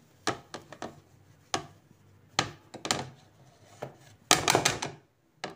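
Scattered knocks and taps of kitchen utensils against a mixing bowl as powdered sugar is tipped onto creamed butter, with a denser run of scraping knocks about four seconds in.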